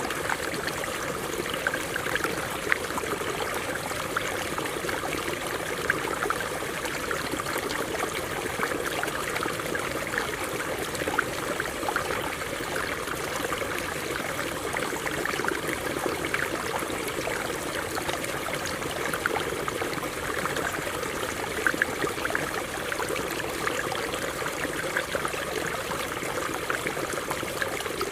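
Stream water running over rocks: a steady rush with many small splashes and bubbling sounds.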